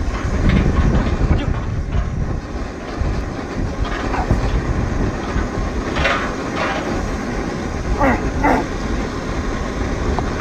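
Steady low outdoor rumble of wind on the microphone and harbour background noise, with a few short faint vocal sounds about four, six and eight seconds in.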